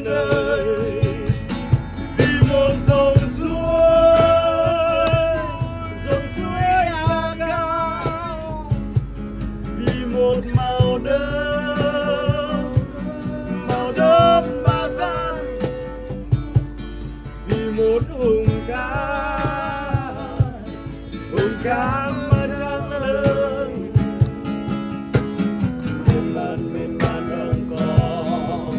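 A man singing live to a strummed acoustic guitar, his phrases ending in long held notes with vibrato.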